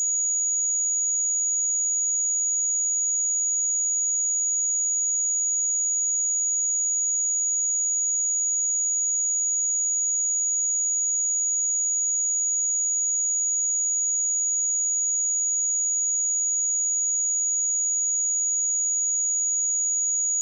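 A pure 6791 Hz sine-wave test tone, held steady at one high pitch with no change in level.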